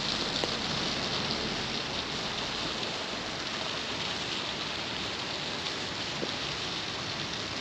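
Fountain jet splashing back into a pond: a steady, even hiss of falling water.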